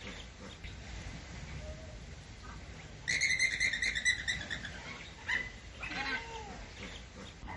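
Flamingos calling: a quick run of repeated honking calls starts about three seconds in and lasts over a second, followed by a few scattered single calls.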